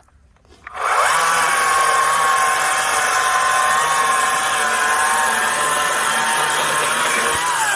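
Electric chainsaw spinning up about a second in, then running at a steady high whine while sawing through wood, and winding down with falling pitch near the end.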